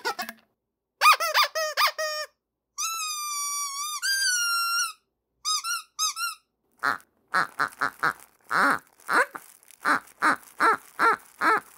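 Squeaky dog toys being squeezed: a group of short squeaks, then two long drawn-out squeaks at a steady pitch, three quick squeaks, and from about seven seconds in a fast run of a dozen or so rougher squeaks.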